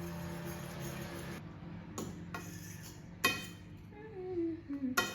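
Background music that cuts off about a second and a half in, followed by a few sharp clinks of utensils on dishes, the loudest near the middle.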